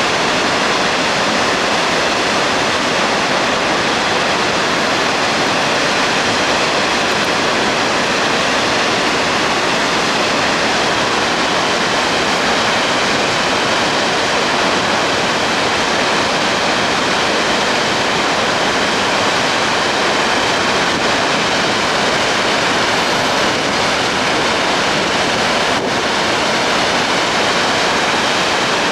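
Floodwater released from the Ikari Dam, a concrete gravity dam, pouring down in a loud, steady rush of falling water. It is a flood-control discharge made because typhoon rains have swollen the river.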